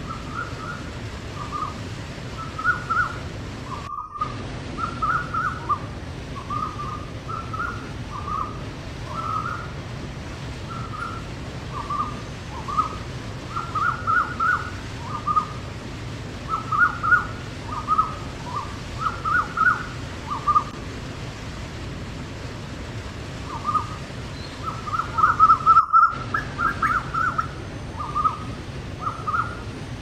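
Steady rush of a waterfall, with a bird's short chirps repeating over it in quick runs, busiest near the end. The sound drops out for a split second twice.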